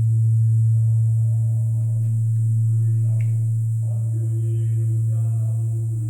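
Deep, steady hum of a large Korean bronze temple bell (beomjong) ringing on after a strike, its loudness slowly swelling and easing, with fainter higher tones wavering above it.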